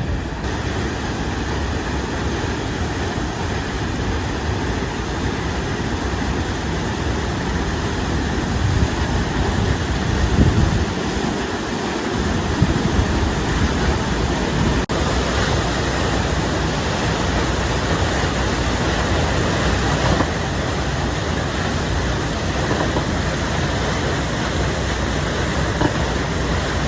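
Steady rushing noise of a pontoon boat under way: motor drone mixed with water and wind.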